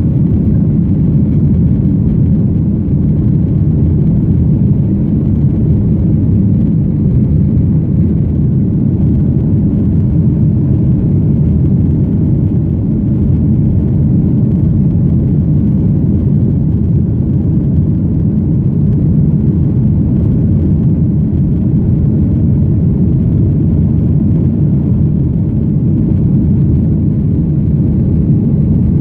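Airplane engines and airflow heard from inside the passenger cabin during takeoff: a steady low rumble.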